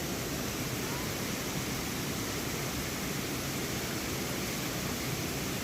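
A waterfall rushing: a steady, even wash of falling water.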